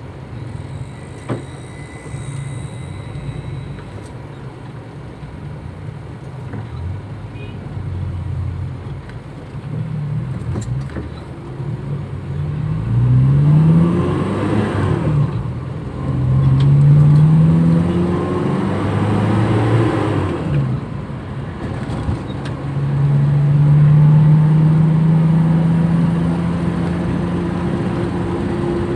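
Toyota Kijang engine accelerating through the gears. The pitch climbs, drops at each shift and climbs again about three times, with a long steady pull near the end.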